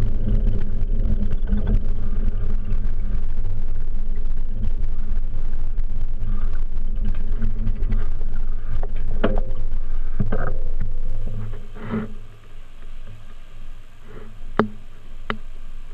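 Wind and riding noise buffeting a bicycle-mounted camera's microphone, a steady low rumble with a few knocks. About eleven seconds in it falls away as the bike stops, leaving a quieter background with a few sharp clicks.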